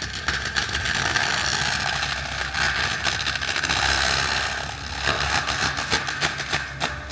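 Machine-mounted forestry mulching head shredding a tree: the engine runs steadily under a high, even whine from the spinning cutter head, with a constant rattle of sharp cracks as the wood is chewed up, thickest in the last couple of seconds.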